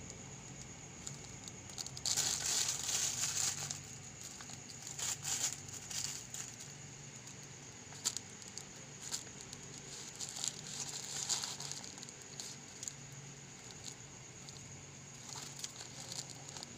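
A cat shifting inside a plastic bag on a bed of newspaper, crinkling the plastic and rustling the paper in irregular bouts. The loudest bout comes about two seconds in and lasts a couple of seconds, and shorter bursts follow.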